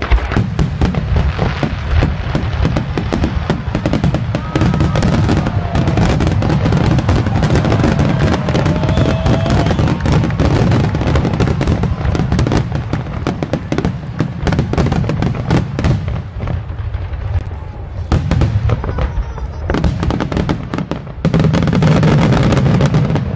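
Aerial fireworks display: a rapid, near-continuous barrage of shell bursts and crackle, with a couple of short lulls near the end.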